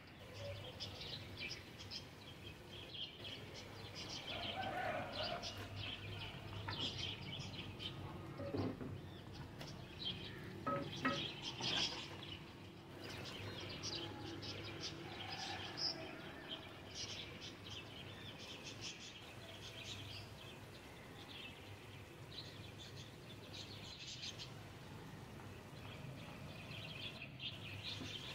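Small birds chirping and twittering in the background over a faint low hum, with a brief cluster of louder clatters about eleven seconds in.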